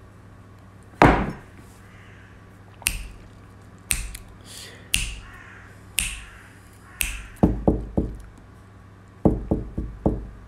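A series of sharp taps and knocks: single ones about a second apart, then quick runs of four or five near the end.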